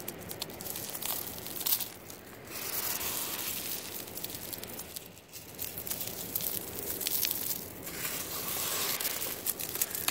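A handful of beach pebbles and sea glass shifting and clicking against each other in a cupped hand, over a steady hiss.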